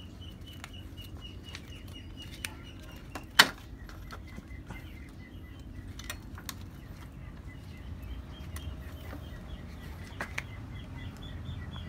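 Small plastic clicks and rattles of a wiring connector being worked off a Yamaha Sniper 150's stock ECU, with one sharp, loud click about three and a half seconds in. Birds chirp faintly in the background.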